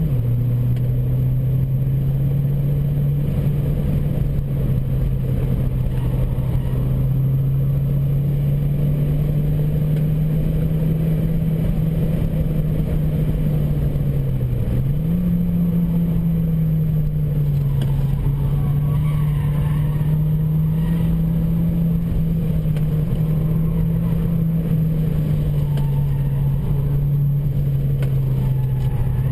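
Opel Coupe Turbo's engine pulling hard, heard from inside the cabin: a loud, steady engine note that drops sharply right at the start and dips briefly about halfway before climbing back up, over road noise.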